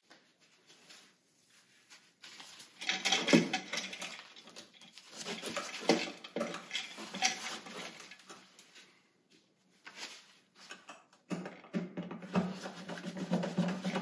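Sped-up clicks, scrapes and rattles of a screwdriver and bare copper wire working against a metal electrical box as a ground wire is screwed to the box's ground screw. The sound comes in busy stretches with quieter gaps between them.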